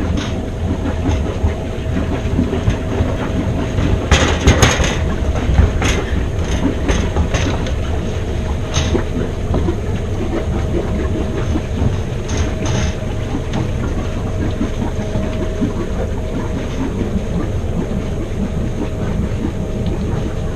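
Sailing yacht's engine running steadily at low revs as the boat motors slowly out of its berth, with a few sharp knocks about four to six seconds in.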